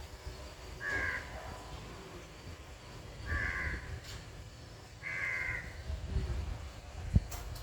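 A crow cawing three times, each caw about half a second long and about two seconds apart. A single sharp knock comes near the end.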